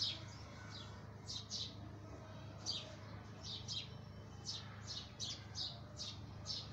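Small birds chirping: short, high chirps repeated irregularly a couple of times a second, over a low steady hum.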